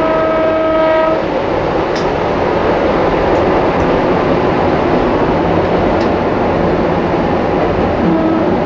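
Izuhakone Railway 1100 series electric train (ex-Seibu 701 series) running along the line, heard from the cab. A horn sounds and stops about a second in, then the steady running noise of wheels and motors carries on.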